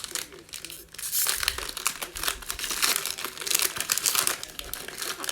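Foil wrapper of a Prizm football card pack being torn open and crinkled by hand, a dense run of crackling starting about a second in.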